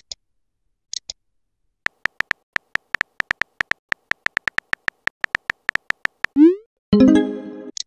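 Synthetic keyboard ticks from a texting-story animation, about six a second, as a message is typed letter by letter. Near the end comes a rising swoop and then a short synth chime, the message-sent sound.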